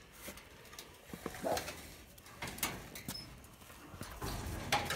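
Quiet shuffling and knocking of chickens settled on a roost, with one brief low call about a second and a half in and a heavier knock near the end.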